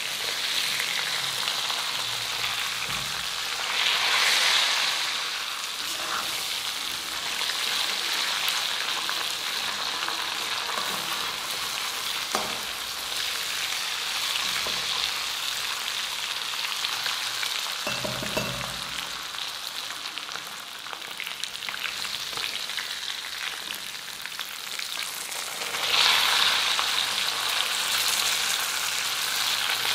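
Whole chicken shallow-frying in hot oil in an aluminium wok with shallots and curry leaves: a steady sizzle that swells louder about four seconds in and again near the end. A few short knocks of a metal ladle against the pan.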